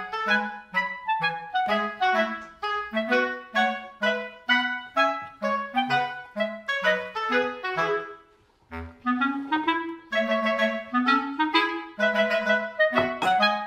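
Background music: a quick, bouncy melody of short detached notes, with a brief pause about eight seconds in.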